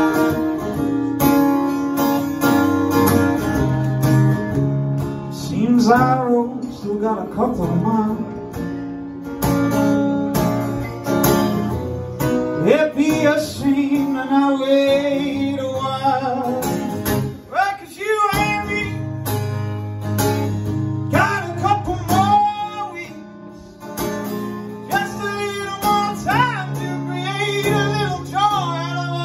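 Live acoustic guitar played steadily, with a man singing over it in separate phrases.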